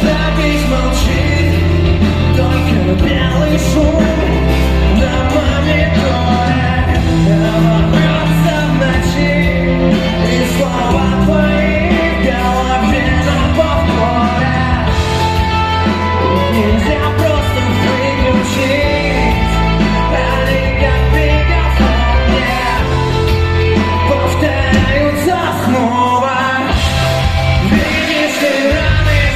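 Rock band playing live: bass, guitars and drums, with a voice singing over them.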